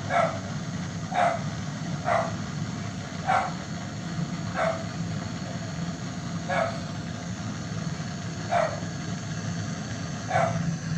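A dog barking repeatedly, about eight single barks one to two seconds apart, over a steady low machine hum.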